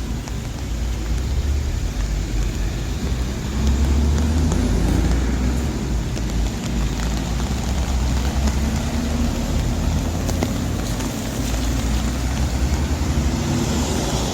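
Rainy city street: road traffic running on wet roads with a steady hiss of rain and a low rumble that swells and eases.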